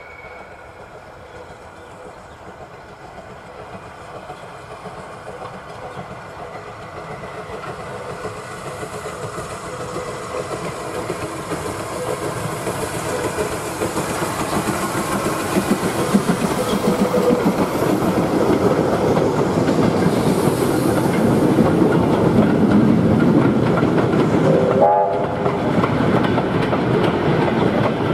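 Steam locomotive and its train approaching, the working locomotive getting steadily louder. A short whistle sounds near the end.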